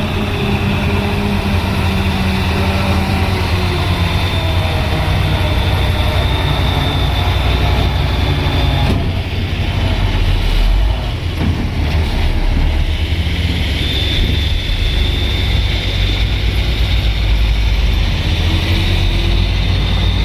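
Heavy truck engine running steadily, with a deep rumble and a thin steady high whine. It eases briefly about halfway through.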